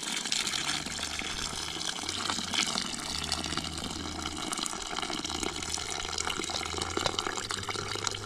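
Coconut milk being strained from grated coconut into a pot: a steady trickling and splashing of liquid, over a low steady hum.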